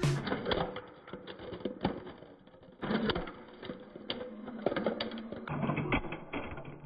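Diecast model car and a spray paint can handled and set down on a gritty concrete floor: a run of small irregular clicks, taps and light scrapes, busier from about three seconds in.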